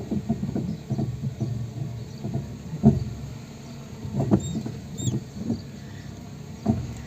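Renault Clio's front-left suspension knocking and clunking irregularly as the car reverses slowly over uneven ground, with the engine running underneath. The knocking comes from play in the suspension, which the owner puts down to a burst front shock absorber that has lost its oil.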